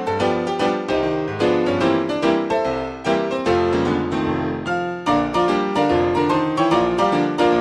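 Piano music: a steady stream of notes and chords with a lively, even pulse.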